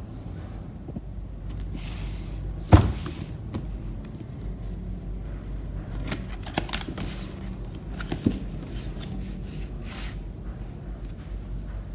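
Cardboard box handled and opened by hand: one sharp knock of the box about three seconds in, then lighter taps, clicks and scrapes of cardboard as the lid flap is opened and the smaller boxes inside are touched.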